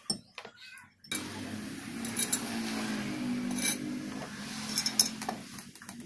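A few light metallic clinks and knocks as the steel halves of a paper-plate cutting die are handled and turned over on a workbench, over a low steady hum. The first second is almost silent.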